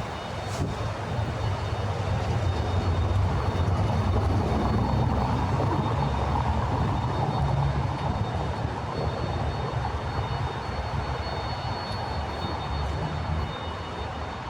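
City street ambience dominated by a low engine rumble that swells a couple of seconds in and slowly eases off near the end.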